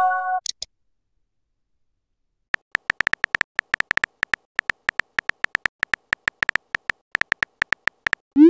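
Texting-app sound effects: the tail of a short message chime at the start, then after about two seconds of silence a steady run of keyboard tap clicks, about six a second, one per typed letter. Near the end comes a quick rising swoosh as the message is sent.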